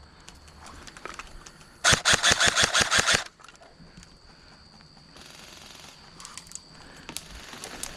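An airsoft gun firing one full-auto burst of about a dozen rapid shots, lasting a little over a second, starting about two seconds in. Fainter scattered pops and clicks follow.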